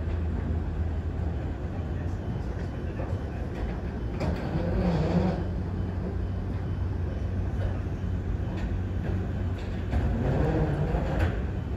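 Steady low rumble of a moving vehicle, with people's voices briefly about four seconds in and again near the end.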